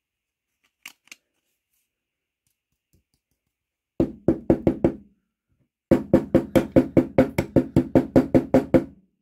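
Corroded steel Mauser K98 bayonet scabbard knocked end-down against a wooden workbench, shaking loose rust out of it. A quick run of about six knocks comes first, then after a short pause a longer run of about seventeen even knocks at some five or six a second.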